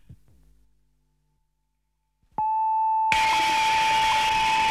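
A song dies away into a moment of silence. About halfway through, a steady high tone starts, and a moment later a loud wash of noise comes in under it as the next noise-rock track begins.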